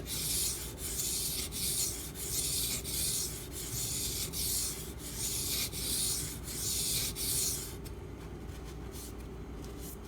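An H1-steel knife blade stroked back and forth on a wet water stone: a rhythmic hissing scrape at about one and a half strokes a second, raising a burr on the edge. The strokes stop about three-quarters of the way through.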